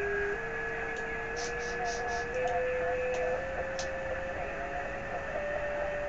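Amateur radio receiver tuned to a satellite downlink: steady hiss with a steady whistling carrier tone, whose pitch steps upward in small even steps about once a second, and a second, higher steady tone.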